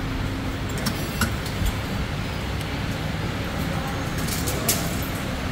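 Steady low rumble of vehicle noise in a busy commuter rail station, with a couple of short sharp clicks about a second in and near the end.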